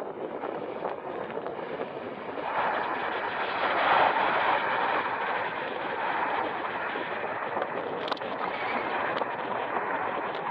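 Jet engine noise from a CRJ-900 regional jet's two GE CF34 turbofans during landing, heard as a steady rushing roar. It swells about two and a half seconds in and eases back a couple of seconds later.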